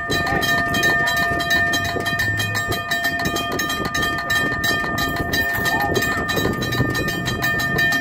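Multi-chime train horn sounding a steady chord of several notes held together, with one note dropping out briefly a couple of seconds in.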